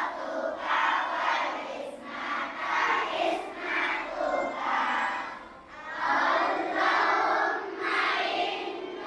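A large group of young children chanting loudly together in unison, in short rhythmic phrases.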